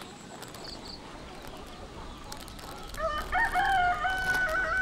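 A rooster crowing once, starting about three seconds in: a few short rising notes, then a long held note.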